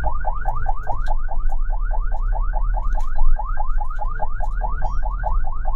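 Ambulance siren on its fast yelp setting: a rising wail repeating about seven times a second, with a low vehicle rumble underneath.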